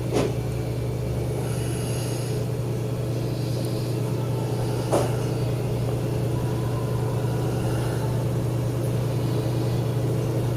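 Steady low machine hum that does not change, with two short clicks, one just after the start and one about five seconds in.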